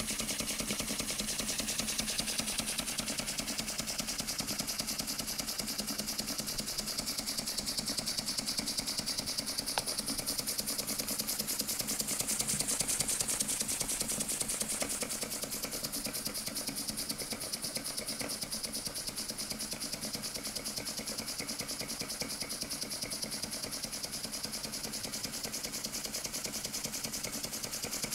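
Small vertical steam engine running on compressed air at about 1 bar: a rapid, even beat of exhaust puffs with a steady hiss of escaping air.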